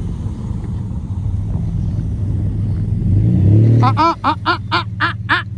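A vehicle's engine revving as it tries to pull away in deep snow without traction, its hum swelling and rising about three and a half seconds in. Near the end comes a quick run of short, sharp pitched pulses, about five a second, louder than the engine.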